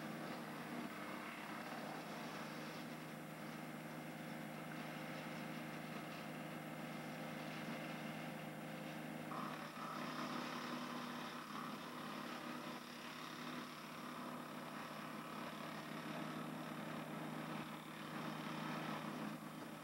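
A small engine running steadily at idle, with a higher steady tone joining in about halfway through.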